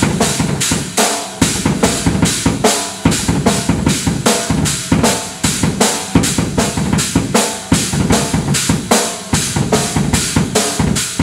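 Acoustic drum kit played in a steady beat, bass drum and snare driving it with cymbals ringing over the top, about three to four strikes a second.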